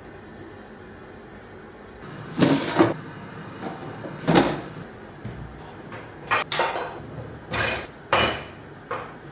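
Kitchen clatter: a run of sharp knocks and clinks of dishes and a cupboard being handled. It starts about two seconds in, with about eight separate hits.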